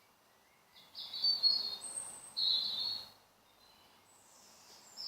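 A songbird singing high, quick phrases: two bursts of song in the first half, then quiet, then another phrase starting near the end.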